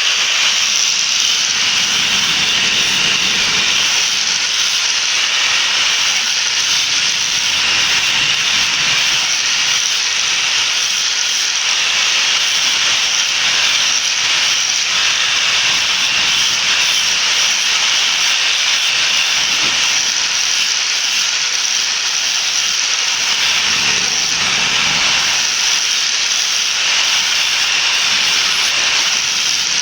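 Steady, loud hiss of workshop metalwork on a crown pinion, unbroken and even throughout.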